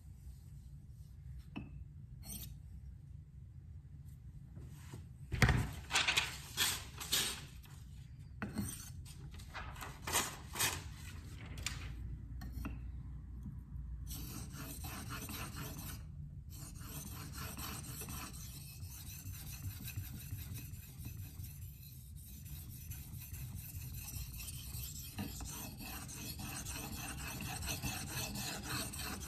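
LC200N steel knife blade being stroked across a water stone: a handful of separate, louder scrapes about a fifth of the way in, then quick, continuous back-and-forth scraping from about halfway on.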